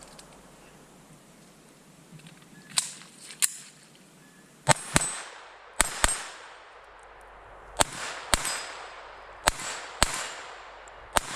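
Smith & Wesson M&P 22 Compact .22 LR pistol firing about eleven shots. The first two, about 3 s in, are lighter; the rest come mostly in quick pairs a third to half a second apart, each shot with a short echo.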